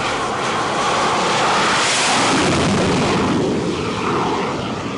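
X-47B unmanned jet's turbofan engine at full power during a steam catapult launch off a carrier deck: a loud rushing jet roar that swells to its peak about two seconds in, then eases as the aircraft climbs away.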